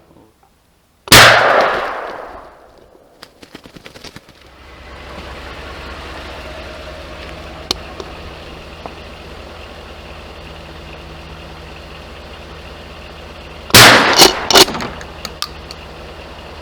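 A single loud gunshot about a second in, trailing off in an echo; a steady low engine hum follows, and a few seconds before the end comes a second shot, heard as a quick cluster of loud cracks.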